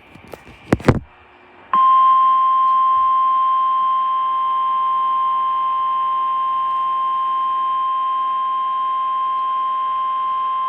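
Two short clicks, then the NOAA Weather Radio 1050 Hz warning alarm tone: one loud, steady beep held for about nine seconds and cut off sharply. It signals that a warning broadcast follows, here a severe thunderstorm warning.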